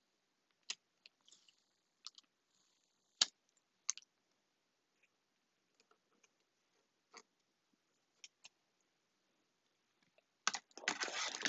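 Scattered small clicks and crackles from a plastic wrapper being handled, then a dense burst of wrapper crinkling near the end.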